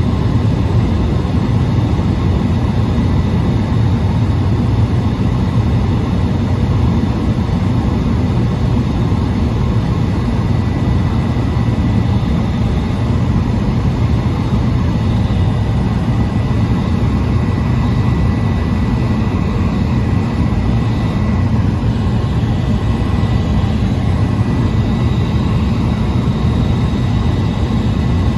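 Cabin noise inside a Cessna 208 Caravan: the single turboprop engine and propeller give a steady, loud low drone, with a faint constant high whine above it.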